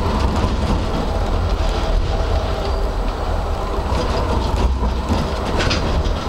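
Tram running along street track, heard from inside the car: a steady low rumble of wheels on rail and running gear, with a few sharp clicks and rattles about five seconds in.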